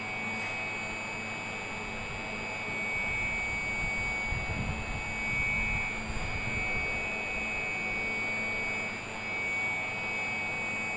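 A running Vertiv Liebert Hipulse U 60 kVA UPS gives a steady fan hiss with a high-pitched whine of several steady tones. A low rumble comes in from about three to seven seconds in.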